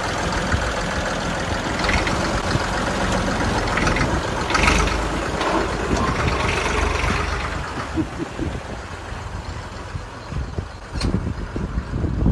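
Restored old diesel tractor engine running while the tractor backs up, getting quieter about eight seconds in. A single sharp click near the end.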